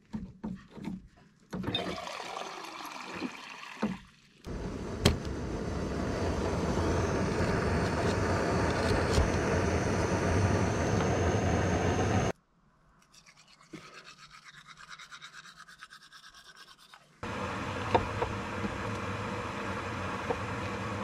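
Jetboil canister stove burner hissing steadily for about eight seconds, then cutting off abruptly. A few sharp clicks come before it; near the end, knife strokes on a wooden cutting board are heard over a steady hiss.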